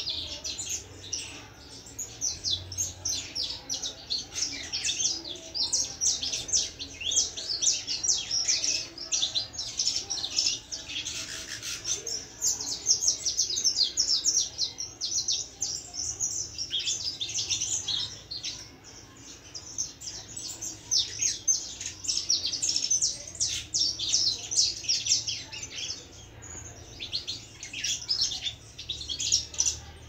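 Young canary practising its first song: a long, rambling run of quick high chirps and twitters, broken by short pauses.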